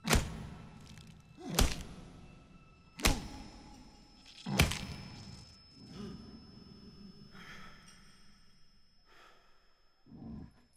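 Heavy punches landing on a body: four hard thuds about a second and a half apart, each with a booming tail, then a weaker blow about six seconds in. A short low sound follows near the end.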